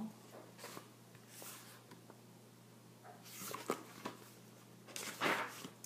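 Paper pages of a picture book rustling as the book is handled and held up. There are three soft swishes, the loudest near the end.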